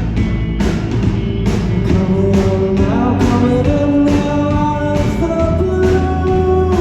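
Live rock band playing: a steady drum beat about twice a second over bass and guitar, with long held melody notes on top.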